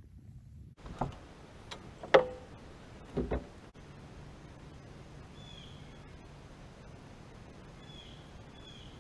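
A few sharp knocks about one, two and three seconds in, the one about two seconds in the loudest. Then a steady faint background hiss with a bird giving three short falling chirps in the second half.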